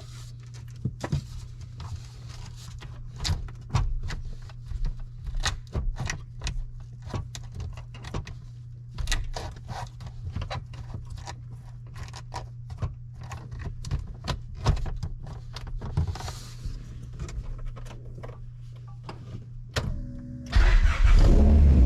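Repeated small plastic clicks and knocks of hands working at the dash's gauge cluster to remove a warning bulb, over a steady low hum. Near the end the Honda Prelude's H23 engine cranks and starts, suddenly much louder.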